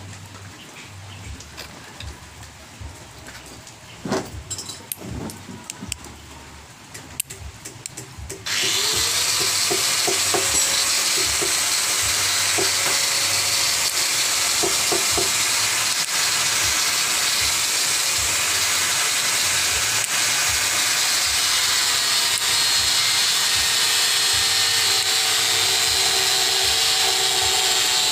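Small electric gear motor of a homemade RC truck chassis switched on, spinning up suddenly about a third of the way in and then whirring steadily and loudly. Before it starts there are only a few faint clicks from handling the battery and wires.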